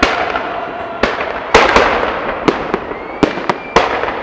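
Fireworks salute: aerial shells bursting in a string of sharp bangs, about seven in four seconds, over steady crackling.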